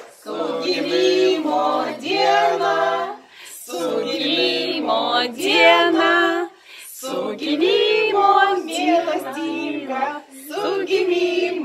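A small group of family voices singing a birthday song unaccompanied, in four sung lines with short breaks between them.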